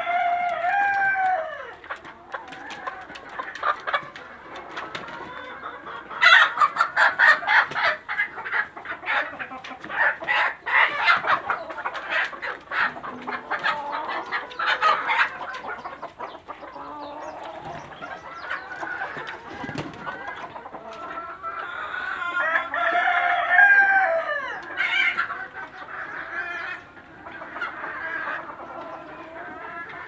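A flock of chickens clucking and squawking, busiest and sharpest through the middle. A rooster crows, one long rising-then-falling call near the start and another about three-quarters of the way through.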